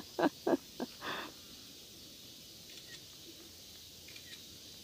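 A few short voiced syllables in the first second, then faint steady outdoor hiss with a couple of weak chirps.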